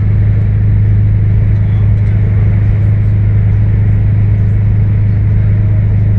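Scania 164L 580's V8 diesel engine idling, loud and perfectly steady, with no revving or change in pitch.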